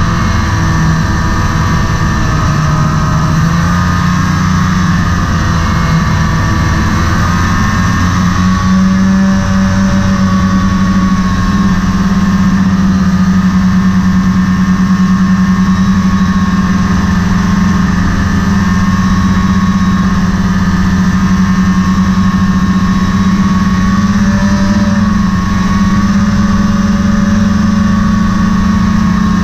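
Snowmobile engine running steadily at trail cruising speed, its pitch climbing a little twice in the first ten seconds and then holding, with rushing wind noise on the microphone.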